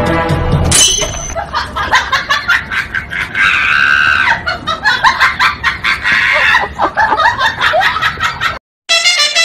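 A voice screaming and laughing in rapid, choppy bursts, starting about a second in after background music cuts off, with one sustained shriek near the middle.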